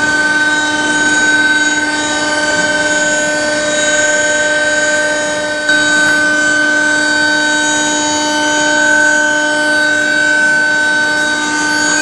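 Induction melting furnace running: a loud, steady electrical whine of several held tones over a rushing noise, stepping up slightly about six seconds in.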